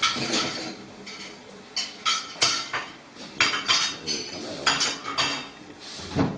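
Hard kitchenware clinking and clattering, a dozen or so irregular sharp knocks.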